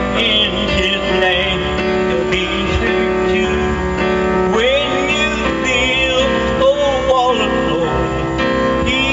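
A man singing into a microphone over instrumental accompaniment, amplified through a PA system.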